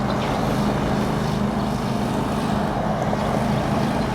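Steady running noise of a moving road vehicle, with a constant low hum throughout.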